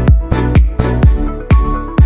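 Loud dance music with a heavy, steady kick drum at about two beats a second.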